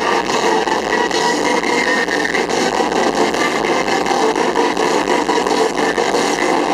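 Live blues-rock band playing loud: a harmonica cupped to the vocal microphone, over violin, electric guitar and drums keeping a steady beat.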